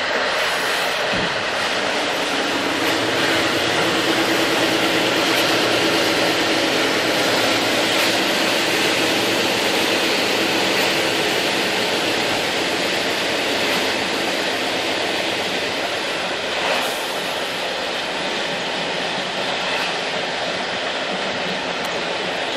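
Passenger train in motion heard from inside the carriage: the steady running noise of wheels on rails.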